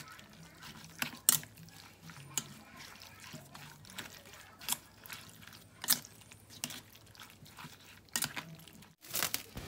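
Silicone spatula stirring sliced pork and mushrooms in their marinade in a stainless steel bowl: irregular wet squelches with scattered sharp clicks, about one every second.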